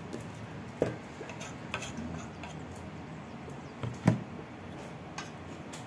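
Wooden cutting board and a kitchen utensil knocking and scraping as grated parmesan is cleared off the board. A few sharp knocks with lighter taps between them; the loudest knock comes about four seconds in.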